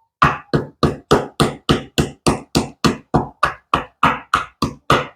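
Ginger being pounded for a cough syrup, knocked in even, steady strokes about three times a second to open it up and bring out its juice.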